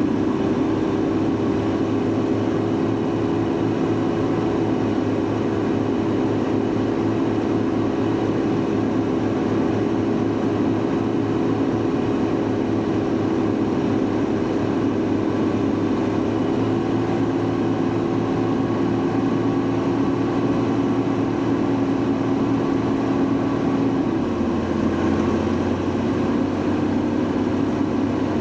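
Mercedes-Benz W124 engine running steadily with road noise while driving; near the end the engine note dips in pitch and settles a little lower.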